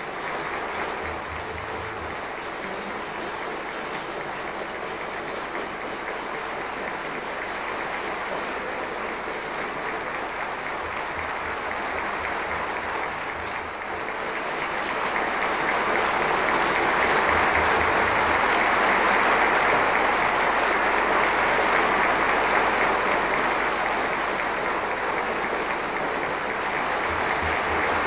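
Theatre audience applauding, growing louder about halfway through.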